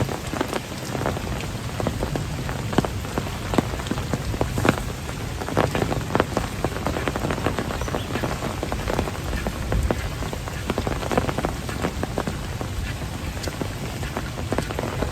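Heavy rain pouring steadily, with many irregular sharp drop strikes on a nearby surface.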